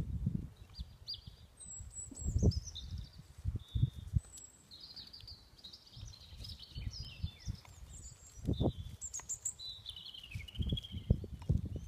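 Small songbirds chirping and singing fast high trills, over irregular low muffled thumps, the loudest about two seconds in and a cluster near the end.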